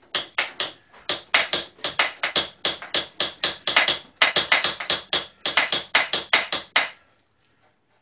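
Socket ratchet clicking in quick, even strokes, about five or six a second, as a bolt on the motorcycle's handlebar clamp is wound in. It stops about seven seconds in.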